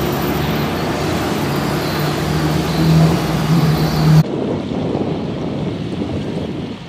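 An engine running with a steady hum amid wind noise, stopping abruptly about four seconds in; wind and waves go on after it.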